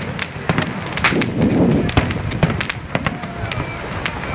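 Aerial firework shells bursting overhead: a rapid, irregular series of sharp bangs and cracks, loud and echoing.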